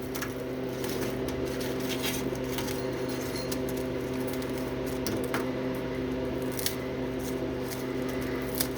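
A steady electrical hum with a few sharp light clicks and crinkles: crisp, bone-dry freeze-dried ham pieces being handled.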